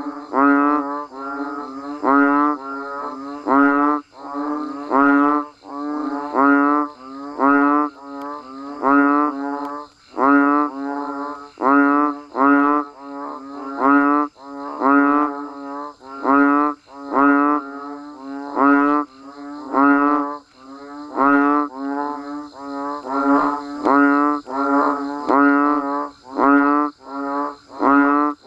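A chorus of banded bullfrogs (Asian painted frogs) calling. Their low, moaning calls come one after another, about one to two a second, from several frogs overlapping. Behind them runs a steady high hiss.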